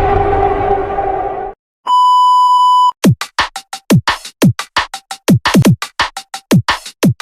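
Background music that stops about a second and a half in, followed by a single steady beep lasting about a second. Then a fast, uneven run of electronic drum hits, each a sharp click with a falling low thud.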